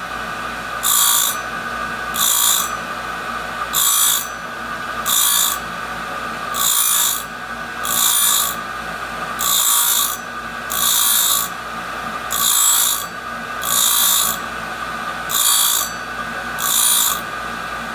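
Tool grinder's abrasive wheel sharpening a hole saw tooth by tooth under CNC indexing. The motor hums steadily, and a short hiss of grinding comes about every second and a half as the wheel meets each tooth in turn, about a dozen times.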